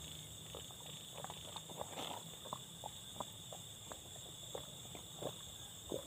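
A person drinking young coconut water straight from the nut: soft, irregular swallowing and gulping sounds, a few per second, over a steady chorus of crickets and other night insects.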